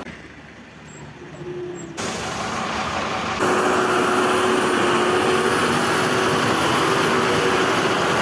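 Truck engines running steadily, with a low steady hum under a dense noise. The sound jumps at two abrupt cuts: quieter for the first two seconds, then loudest and unchanging from about three and a half seconds in.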